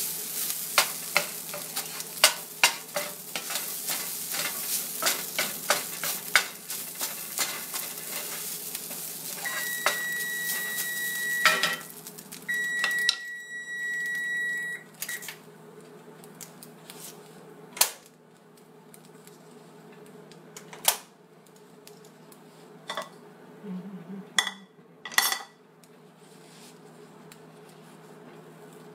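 Canned tuna sizzling in a cast iron skillet while a utensil stirs and scrapes it with rapid clicks against the pan. Twice, about ten and thirteen seconds in, a steady high tone sounds for about two seconds. After that the sizzling and scraping die down to a few separate knocks of the utensil on the pan.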